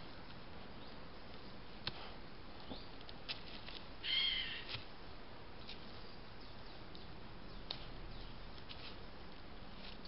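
A short, harsh bird call about four seconds in, the loudest sound, over a steady hiss with scattered light ticks and rustles.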